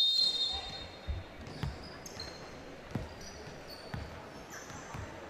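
A short, loud referee's whistle blast right at the start. After it a basketball bounces on the court, a thud about every second, with sneakers squeaking now and then.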